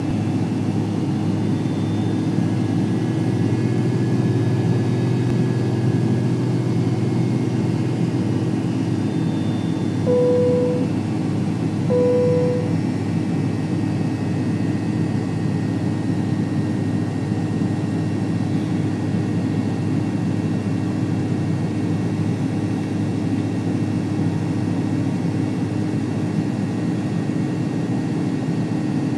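Cabin noise inside a McDonnell Douglas MD-80 taxiing: a steady hum and hiss from its rear-mounted Pratt & Whitney JT8D turbofans at low power. Two short identical tones sound about two seconds apart, about a third of the way in.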